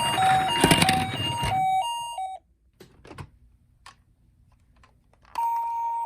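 Toy ambulance minicar's electronic two-tone 'pipo-pipo' siren alternating between two pitches, with a rattling clatter and a few knocks about a second in. It cuts off about two and a half seconds in, a few faint clicks follow, and a siren tone starts again near the end.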